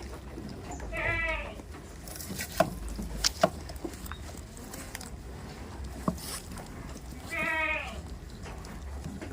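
A goat bleating twice, each a short wavering call under a second long, about a second in and again near the end. A few sharp clicks come between the bleats.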